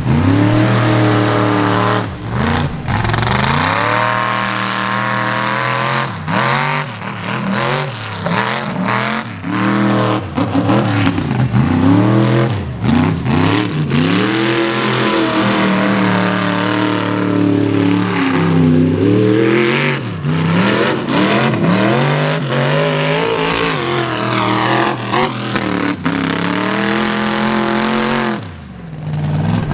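Mega truck engines revving hard again and again, their pitch climbing and falling with each burst of throttle as the trucks power through deep mud.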